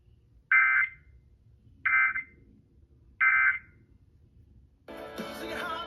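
Emergency Alert System end-of-message data bursts: three short, buzzy digital bursts about 1.3 seconds apart, played through an FM radio's speaker, marking the end of the weekly test alert. Near the end the station's music comes back on.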